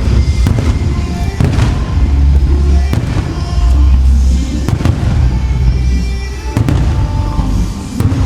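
Aerial fireworks shells bursting in a rapid series of bangs over loud show music with a heavy bass.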